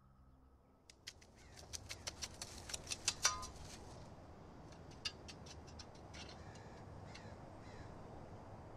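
Crows cawing, a rapid cluster of calls in the first few seconds and a few scattered ones after, over a steady low outdoor background.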